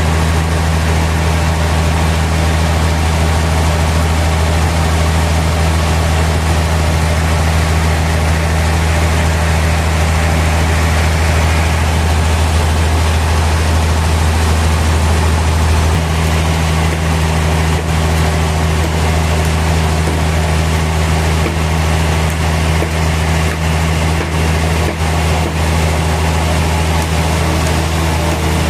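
Sawmill machinery running steadily with a loud, low engine-like hum and a noisy wash over it. A few light knocks come in over the second half.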